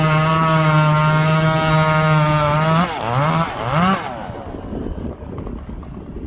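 Two-stroke chainsaw running at a steady high pitch under full throttle, as in a felling cut through a Douglas fir trunk. About three seconds in the throttle is let off and blipped twice in quick rising revs, then the saw's sound drops away about four seconds in.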